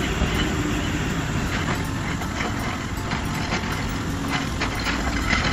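XDA40 articulated dump truck running with its bed raised in the tipping position. The engine noise is steady, with scattered knocks and clatter throughout.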